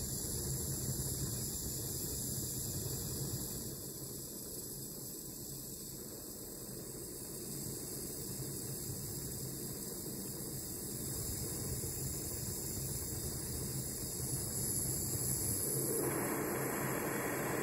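Small handheld gas torch burning steadily with a hiss and low rumble, heating brass wire to a red glow; the flame gets louder near the end.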